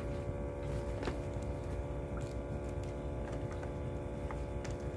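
Steady, even-pitched engine hum with a low rumble beneath it, and a few faint clicks, the clearest about a second in.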